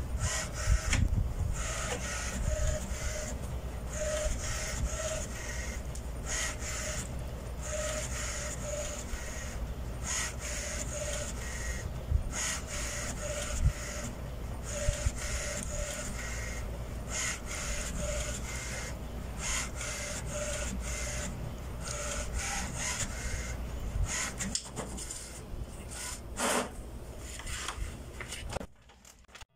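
HP Smart Tank 515 inkjet printer printing a heavily coloured page: the print-head carriage runs back and forth in repeated passes, with short pauses for the paper to advance between them. The sound cuts off near the end.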